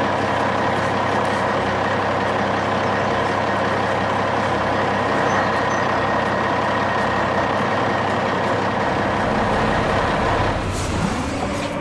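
A heavy truck's engine running steadily; near the end the sound changes to a different, lower steady hum.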